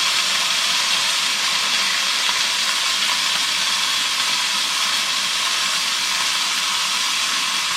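Venison pieces searing in a hot pan: a steady sizzle of browning meat.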